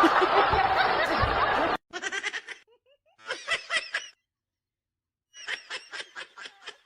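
A loud jumble of sound with a voice in it cuts off suddenly about two seconds in. Then a person laughs in three bursts of quick, rhythmic 'ha-ha' pulses with short pauses between.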